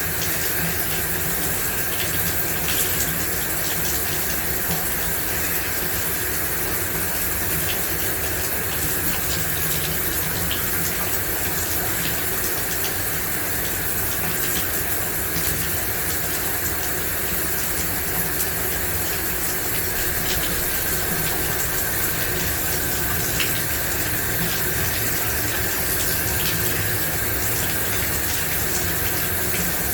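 Shower running: a steady stream of water spraying and splashing, with faint scattered droplet ticks.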